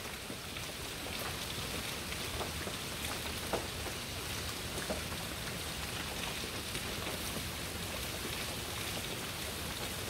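Steady rain falling, a constant even hiss, with a few faint taps of drops partway through.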